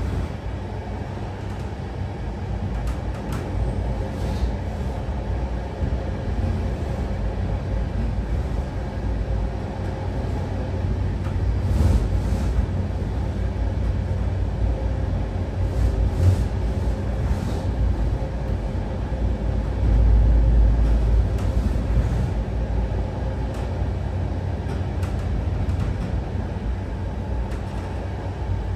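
Running noise of a moving train heard from inside the carriage: a steady low rumble of wheels on rail with scattered irregular clicks and knocks, swelling louder about two-thirds of the way through.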